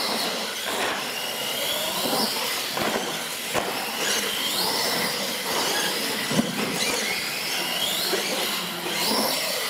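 Pro Modified R/C monster trucks racing flat out: a high motor and gear whine that rises in pitch several times as they accelerate, with a couple of short sharp knocks.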